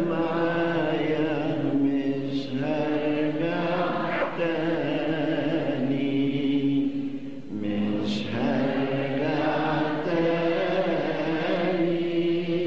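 A slow chanted Arabic hymn: a voice holding long, drawn-out notes that slide gently in pitch, in phrases of a few seconds each.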